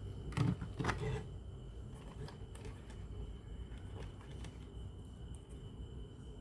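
A few small clicks and knocks of tools and parts being handled at a workbench, the loudest two about half a second and a second in, over a steady low hum and a faint thin high tone.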